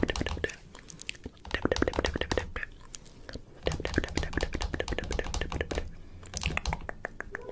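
Rapid, dense runs of sharp clicks and crunches, coming in clusters a second or two long with short pauses between, over a low rumble.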